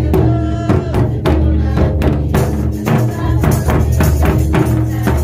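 Live folk music: laced two-headed barrel drums beaten in a quick, steady rhythm, with a tambourine jingling along.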